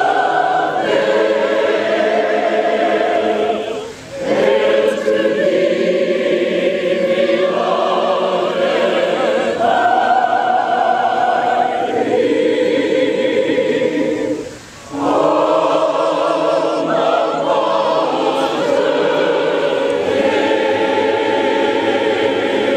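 Mixed choir of men's and women's voices singing a school alma mater unaccompanied, in held chords, with two brief breaks between phrases about four and fifteen seconds in.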